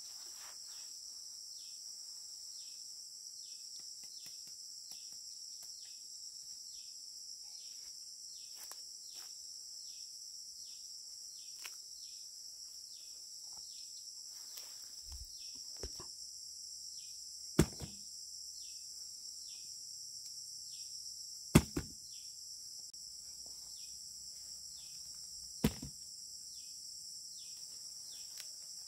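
A steady high-pitched insect drone with short chirps repeating about twice a second, typical of crickets or cicadas. Three sharp knocks, the loudest sounds, come in the second half about four seconds apart.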